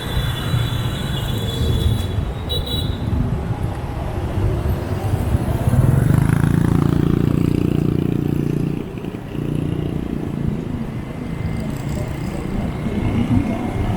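Motorbike and scooter traffic heard from a moving motorbike: small engines running under steady road noise, with one engine louder for a few seconds in the middle.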